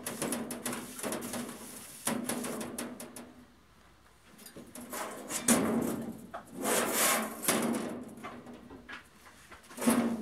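Thin steel sheet being handled on concrete: irregular rubbing and scraping from a gloved hand wiping it, with louder scrapes and knocks as the sheet is lifted and laid back down.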